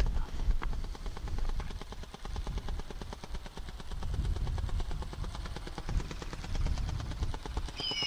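Strong wind buffeting the microphone: a rough, gusting low rumble with a fast flutter. Near the end a high whistled call begins, falling slightly in pitch.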